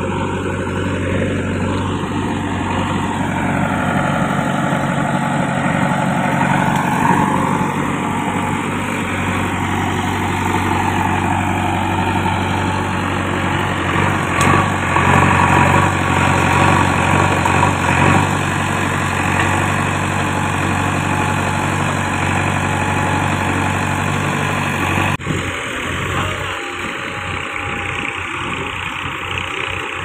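A JCB backhoe loader's diesel engine running steadily while the machine works. It is somewhat louder around the middle, and the sound changes abruptly about 25 seconds in.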